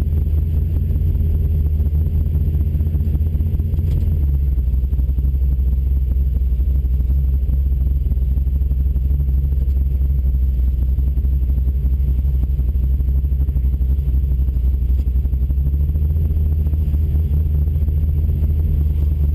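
Small-block Chevy V8 in a 1971 El Camino Super Sport running under way: a steady, low engine and exhaust drone, dropping slightly in pitch about four seconds in.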